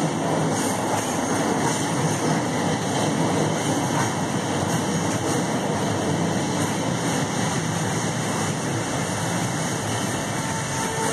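Scarborough RT train (UTDC ICTS Mark I cars) running alongside the station platform, a steady mechanical running noise with no sharp events; a few steady tones come in near the end.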